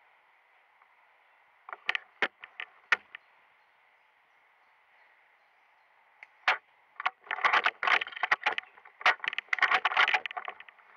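A few scattered sharp clicks, then, from about six seconds in, rapid crunching and crackling of footsteps through dry leaves and twigs on the forest floor, over a faint steady hiss.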